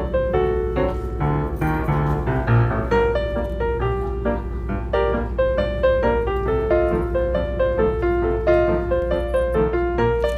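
Background piano music: a flowing run of quick notes over a sustained bass.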